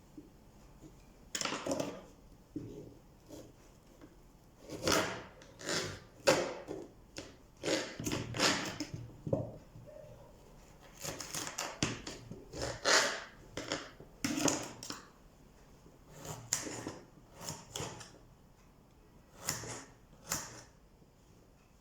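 Kitchen knife chopping vegetables into cubes on a cutting board: an irregular run of short knocks, one or two a second, with pauses between them.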